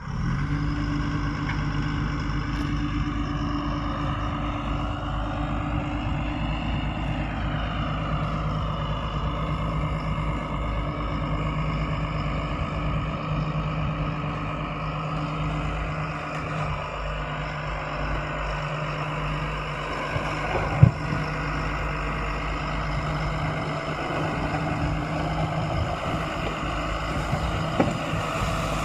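Diesel engine of a Tata 340 H backhoe loader running steadily under work, with a higher whine that dips and rises about five to nine seconds in. A single sharp knock sounds about twenty seconds in.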